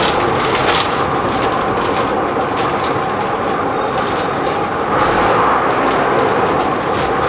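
Bristol VR double-decker bus heard from inside the saloon while under way: the steady drone of its rear-mounted diesel engine and road noise, with short light rattles from the body and fittings every second or so.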